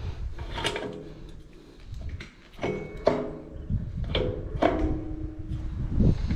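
Briggs & Stratton 8 hp engine's flywheel turned and rocked by hand on a seized engine. It gives about five metal clanks with short ringing, mixed with low scraping and rattling as it moves only part way before stopping.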